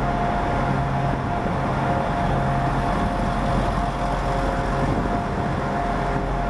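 Arriva Trains Wales Class 175 diesel multiple unit's underfloor Cummins diesel engines idling: a steady drone with a constant higher whine over it.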